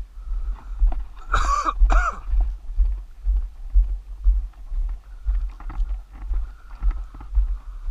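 Walking footsteps on a dirt road, heard as low thumps about twice a second through a body-worn camera. About a second and a half in, a person makes two short voice sounds, half a second apart.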